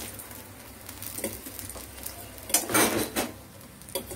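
Metal fork scraping and clinking against a stainless-steel frying pan as fried eggplant slices are lifted out. The loudest run of scrapes comes a little over halfway through.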